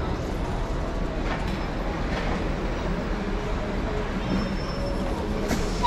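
Steady city street ambience: a continuous low rumble of road traffic under a general wash of street noise, with no single event standing out.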